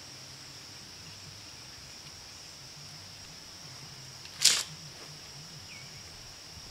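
Steady high-pitched insect chirring, with a faint low hum beneath it. A single short, sharp scraping rustle comes about four and a half seconds in.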